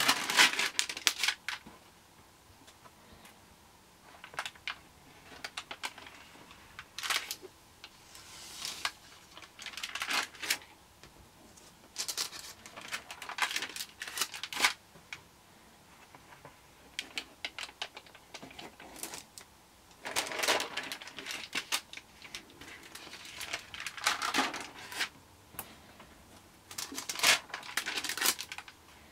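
Pages of a Lighthouse stamp stockbook being turned by hand: the stiff leaves and their clear interleaving sheets rustle in short bursts every few seconds, with quiet gaps between.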